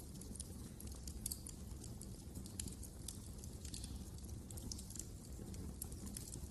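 Wood fire crackling in a fireplace: frequent small, sharp pops and snaps at irregular intervals over a steady low rumble of the burning fire.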